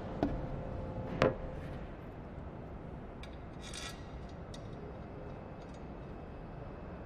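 Two sharp clicks in the first second and a half, then light clinks and rubbing as small parts are handled on a workbench, over a low steady hum.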